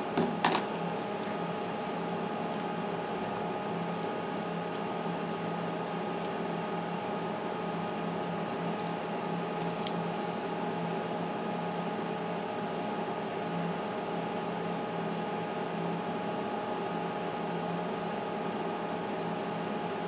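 Steady hum of running bench equipment, a fan-like drone with several fixed tones. Two sharp clicks come about half a second in.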